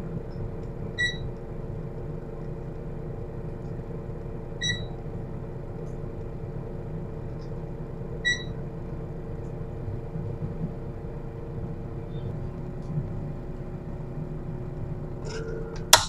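Small electric fan in a styrofoam-box air cooler running with a steady hum and a low rush of air. An infrared thermometer beeps three times, about three and a half seconds apart, as readings are taken. A few clicks and one sharp click come near the end.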